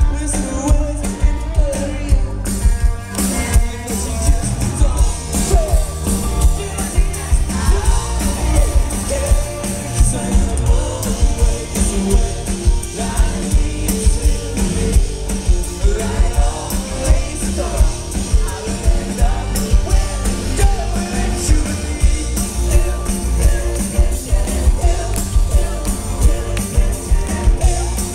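A live rock band playing loudly with a singer: electric guitars, drums and lead vocals over a heavy bass with a steady beat, recorded from the crowd in front of the stage.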